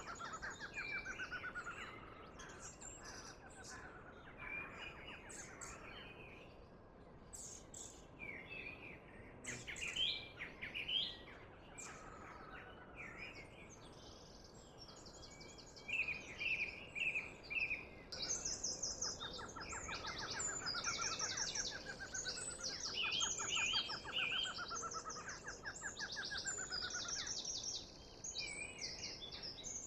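Several birds singing at once, with trills and fast repeated chirps, over a faint steady background hiss; the birdsong grows denser about halfway through.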